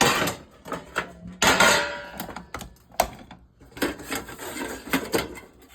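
Metal clattering and clicking on an electric stovetop: a string of separate knocks and clinks with short ringing, the loudest about one and a half seconds in, as the burners and their parts are handled.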